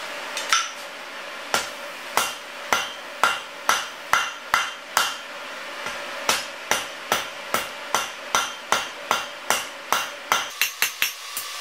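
Ball-peen hammer striking a red-hot 3/8-inch round steel bar on an anvil while forging a square nail: sharp blows about two a second, each with a bright metallic ring. There is a short pause about five seconds in, and the blows quicken near the end.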